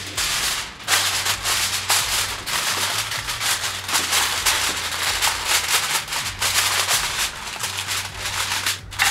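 Sheet of aluminium foil crinkling and crackling as it is stretched over a glass baking dish and pressed down around the rim, with quick irregular crackles throughout.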